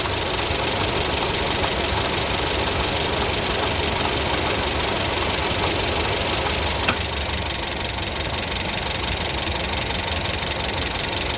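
2012 Honda Civic EX's 1.8-litre four-cylinder engine running steadily with the A/C on, carrying the extra noise the owner hears only with the air conditioning running. About seven seconds in there is a single click as the A/C is switched off. After it the higher part of the sound drops away and the engine runs slightly quieter.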